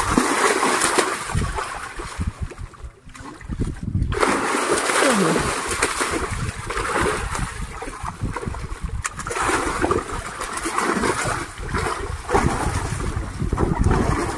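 Water splashing and sloshing, with a brief lull about three seconds in.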